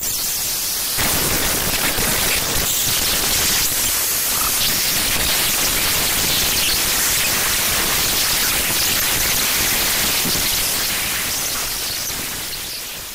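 Dense, harsh static-like noise generated from the data of an Oracle database, heaviest in the highs, with the low end filling in about a second in. It fades out near the end.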